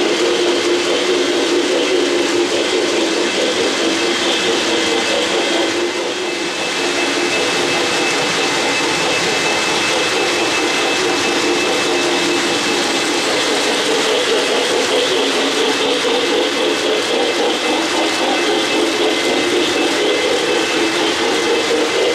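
O-gauge model trains running on the layout track: a steady rolling rumble of wheels on the rails with a thin, even motor whine above it. The sound dips briefly about six seconds in, then carries on as before.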